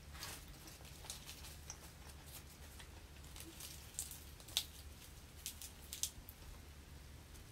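Fresh herb sprigs being snapped and torn apart by hand: scattered faint crisp clicks and leafy rustles as the tender tops are broken off the woody stems, with a few sharper snaps midway, over a steady low hum.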